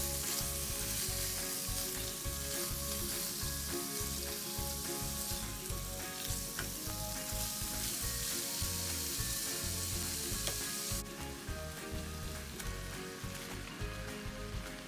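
Sliced pork sizzling as it stir-fries in a non-stick frying pan, with a spatula pushing and scraping the meat around. The sizzle drops noticeably about eleven seconds in.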